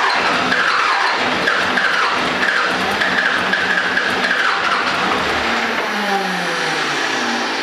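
1995 12-valve Cummins diesel with a P-pump, loud, catching and running on its first start after a head gasket replacement. Its pitch wavers unevenly, then drops about six seconds in.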